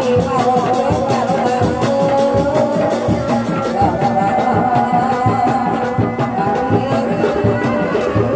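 Sundanese reak dog-dog drumming: dog-dog drums beaten by hand and a large barrel drum struck with mallets in a fast, steady beat, with a wavering melody line over the top.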